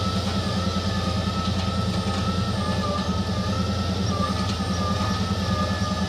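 Tata Hitachi EX210LC excavator's diesel engine running steadily with a fast, even pulse, and a wavering high whine above it.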